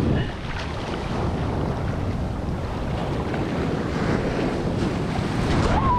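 Rough ocean surf washing up over a sandy beach, the foamy water rushing in and sliding back, with wind buffeting the microphone.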